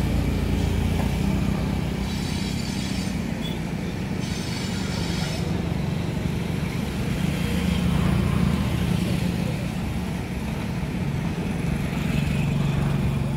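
Electric locomotive running light through the yard, a steady low hum and rumble, with two brief high-pitched sounds about two and four seconds in.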